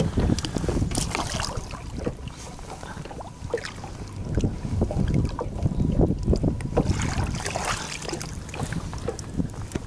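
Wind rumbling on the microphone, with irregular splashes and sloshing of water at the side of a boat as a pike is released by hand.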